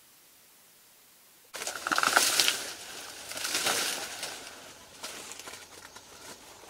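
Dry banana leaves rustling and crackling. The sound starts suddenly about a second and a half in, after near silence, and swells twice before easing off.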